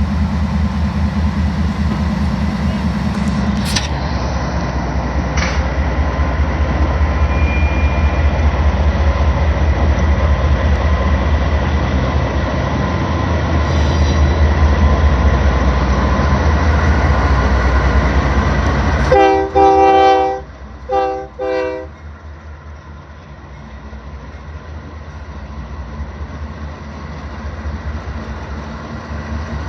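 Train rumbling close by with a steady low engine drone. About two-thirds of the way in, the locomotive horn sounds a chord of several tones: one blast of about a second, then two shorter blasts. Afterwards the rumble is quieter.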